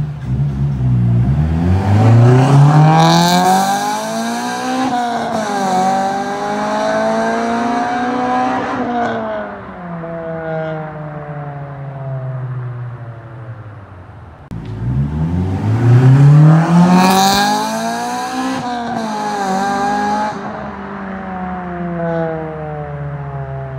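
1999 Honda Civic Si's 1.6-litre B16A2 VTEC four-cylinder, breathing through a Spec D Tuning cat-back exhaust and an AEM cold air intake, accelerating hard twice. Each time the pitch climbs, dips sharply at a gear change, climbs again and then falls away as the throttle eases off.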